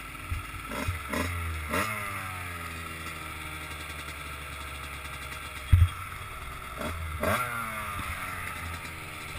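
Enduro dirt bike engines: one bike idles steadily while another is revved hard in short bursts that quickly die away, about a second in and again around seven seconds, as it fights its way up a steep gravel climb. A single heavy thump comes near six seconds.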